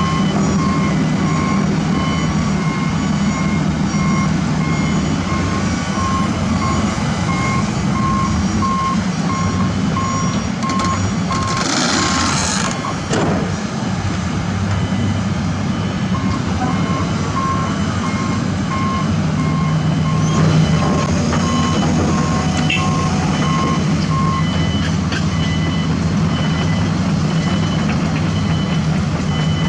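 Diesel construction machinery running, with back-up alarms beeping in a steady repeating pattern at two different pitches; the lower-pitched alarm stops a little past two-thirds of the way through. About twelve seconds in there is a short hiss.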